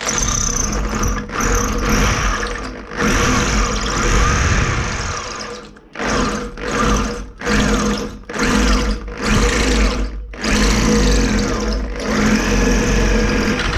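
Electric drill boring a hole through a wall with a steady motor hum. It runs for several seconds, then in short bursts of about half a second from around six to ten seconds in, then steadily again near the end.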